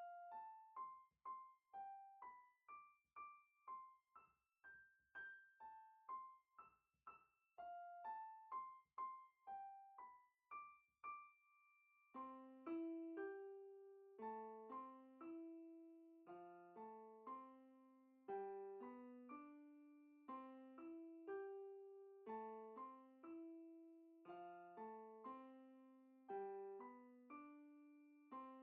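Quiet background piano music: a single melody line of separate, fading notes, joined by lower accompanying notes about twelve seconds in.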